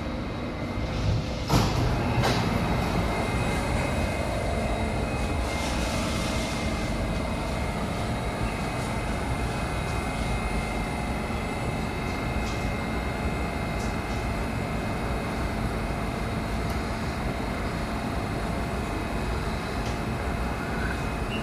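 Steady hum inside a stationary SMRT Thomson-East Coast Line CT251 metro train standing at a platform with its doors open, with a couple of faint constant whining tones. A couple of short knocks come about two seconds in.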